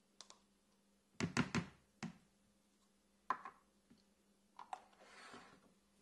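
A spoon knocking against a plastic bowl and tub as soft butter is scooped out: a quick cluster of dull thunks about a second in, single knocks after that, and a short soft rasp near the end.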